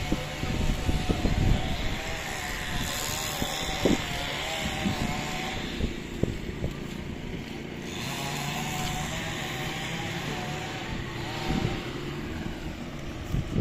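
A motor vehicle's engine running, its pitch wavering, heard in two spells: about a second in and again about eight seconds in. Gusts of wind buffet the microphone near the start.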